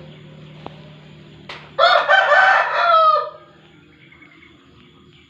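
A rooster crowing once: a loud call of about a second and a half that ends on a falling note, just after a short click.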